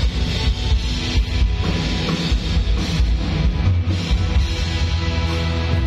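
Loud band music with drum kit and guitar played through a concert PA system during a sound check, with a heavy, steady bass.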